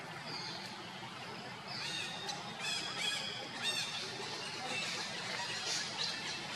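High-pitched animal squeaks and squeals, in a quick run of short calls about two to four seconds in, over a fainter short high call that repeats about once a second.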